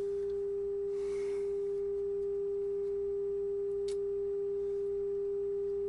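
A steady, unbroken test tone from the RCA 66X1 radio's speaker: the signal generator's modulation tone, received on the radio's 9.5 MHz shortwave band during alignment, with a faint hum beneath.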